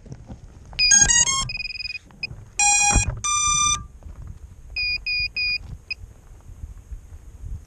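FPV quadcopter's ESCs beeping their power-up tones through the motors as the battery is connected. A quick run of stepped tones comes first, then longer held tones, then three short beeps and a single one, under low handling noise.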